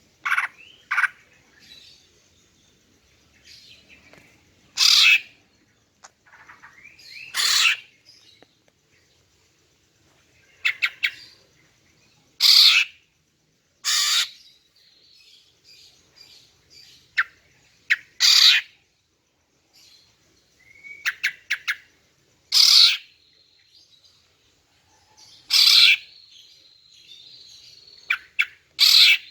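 Female green leafbird (cucak ijo) calling: short, sharp notes every second or few, some in quick clusters of three, over faint background twittering.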